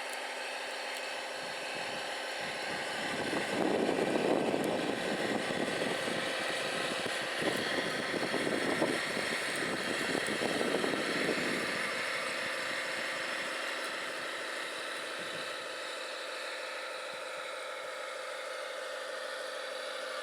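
Radio-controlled scale construction machine running: a steady mechanical whine, growing louder and rougher from about three to five seconds in and again from about seven to twelve seconds, then settling back to the steady whine.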